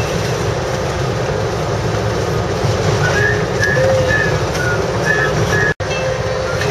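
Iveco Daily truck driving on tarmac, heard from inside the cab: a steady rumble of engine and road noise with rattling. A few short high-pitched notes sound near the middle, and the sound drops out for an instant near the end.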